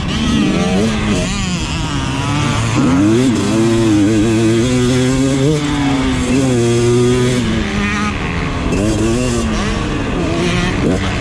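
KTM motocross bike's engine, heard from on the bike, revving hard under load, its pitch climbing and dropping several times as the throttle is opened and closed and gears change.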